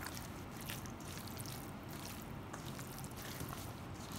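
A spatula folding chicken salad in a stainless steel mixing bowl: faint wet squishing with a few light clicks of the spatula against the metal.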